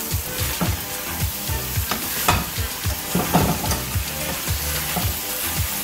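Buttered Reuben sandwiches sizzling in a hot nonstick skillet while a spatula scrapes and knocks against the pan, flipping them.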